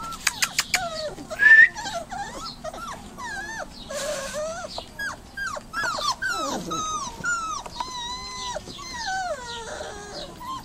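Dobermann puppies whining and whimpering: a string of short, high cries, most sliding down in pitch, one after another, with a few sharp clicks about a second in.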